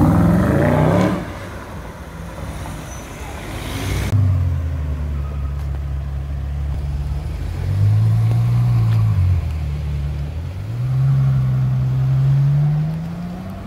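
Mercedes-Benz SLS AMG Roadster's V8 accelerating away with rising revs, then a Ferrari FF's V12 running at low revs as it pulls away slowly, its pitch rising and dropping briefly about halfway through and climbing again near the end.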